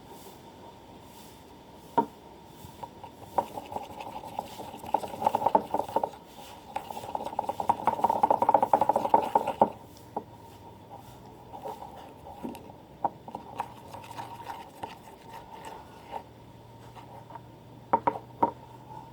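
Scraping and clattering of stirring and handling small plastic containers. It comes in two dense spells of a few seconds, with a few sharp single knocks as things are set down.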